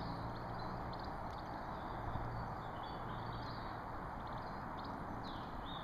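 Woodland ambience: small birds chirping faintly over a steady rushing background noise with a low hum.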